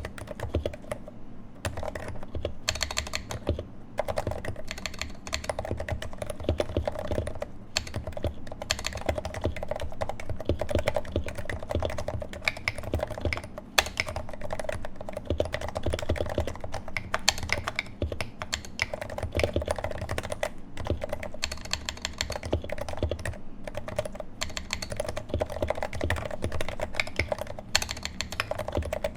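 Steady fast typing on a Leopold FC660C Topre keyboard with 55 g domes, Novatouch sliders lubed with Tribosys 3204 and Silence-X O-rings under GMK keycaps, in a Norbauer Heavy-6 case: a continuous run of deep, muted keystrokes with brief pauses between bursts.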